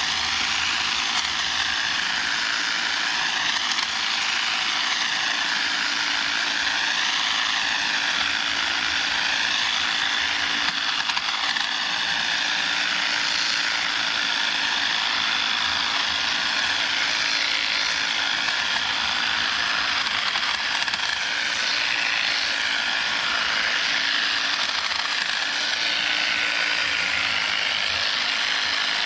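EGO battery pole hedge trimmer running, its reciprocating blades cutting through spirea branches, the pitch dipping and rising every couple of seconds as it bites into the growth.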